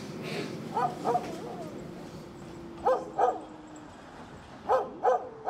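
A small dog barking in pairs of short yaps, a pair about every two seconds, over a faint steady low hum.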